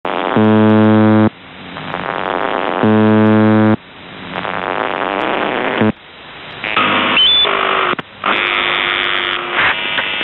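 The UVB-76 'Buzzer' shortwave station on 4625 kHz heard through a radio receiver: two low, harsh buzzes about a second long, roughly two and a half seconds apart, with radio static swelling between them. From about seven seconds the regular buzzing gives way to a jumble of tones and noise.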